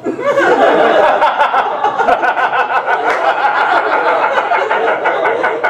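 Audience laughing, breaking out suddenly and holding loud throughout, with scattered clapping mixed in.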